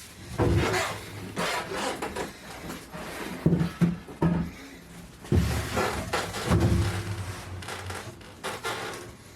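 Irregular knocks, thumps and scraping from materials being handled and set in place on a workbench, with faint background music.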